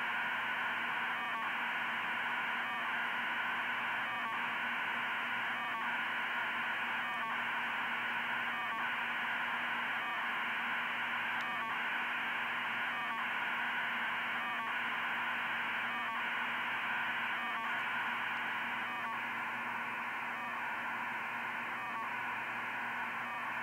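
2400-baud RTTY data signal from a balloon flight computer, heard as demodulated receiver audio: a steady, even rushing hiss. A short tick breaks it about every one and a half seconds, once per SSDV image packet.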